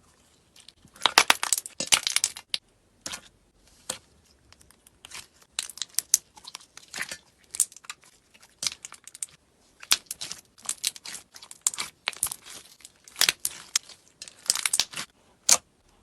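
Crunchy eating sounds close to the microphone: crisp food being bitten and chewed, a run of sharp crackling crunches at irregular intervals, loudest about a second in.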